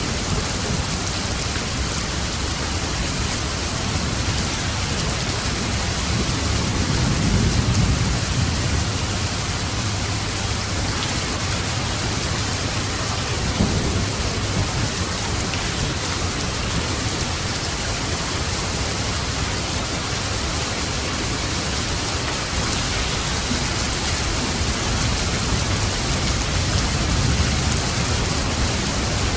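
Steady rain falling, with low rolls of thunder; the strongest rumble swells about seven to eight seconds in.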